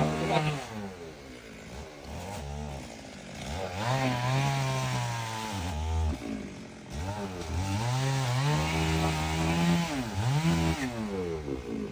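Two-stroke chainsaw engine revving up and down several times, with two longer runs at high speed in the middle.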